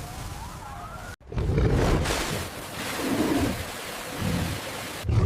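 Rushing, splashing water with deep rumbling that swells and fades several times, after a sudden cut about a second in.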